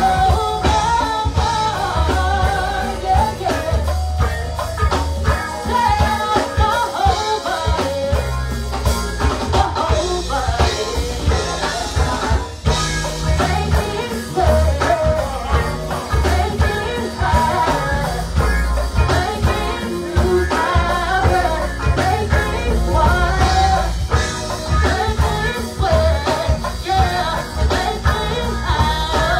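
Live go-go band playing: singing over drum kit, congas and bass guitar, with a heavy, steady bass beat.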